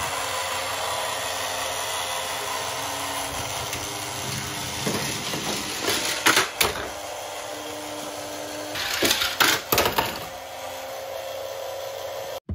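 Small motor of a toy conveyor running with a steady whirr as it carries die-cast toy cars up its belt. Loud clattering knocks come about six seconds in and again around nine to ten seconds, as metal toy cars strike and run down the plastic track.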